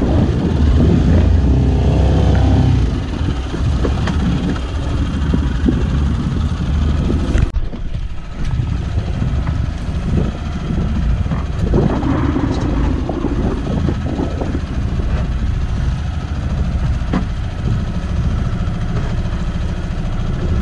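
Small fishing boat's outboard motor running under way, with wind buffeting the microphone.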